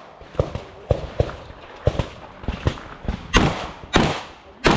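Rapid shotgun fire: three loud shots about two-thirds of a second apart in the last second and a half, each with a short ringing tail. Before them, a string of fainter sharp cracks and knocks comes every few tenths of a second.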